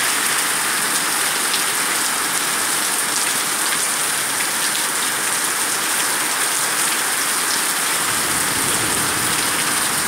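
Rain falling steadily on the street and paving, a dense even hiss with the faint patter of individual drops.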